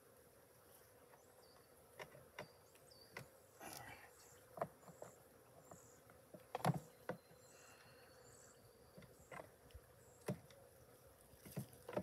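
Wooden beehive boxes and frames being handled, giving a dozen or so scattered knocks and clacks, the loudest about six and a half seconds in. Under them, a faint steady hum of honeybees.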